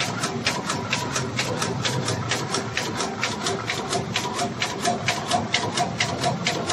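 Automatic paper carton erecting machine running, its forming mechanism clacking in a fast, even rhythm of about five strokes a second over a steady machine hum.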